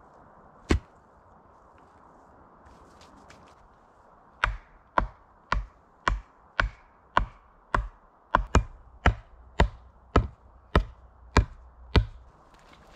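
Wood being chopped: a single blow about a second in, then a steady run of about fifteen blows, roughly two a second.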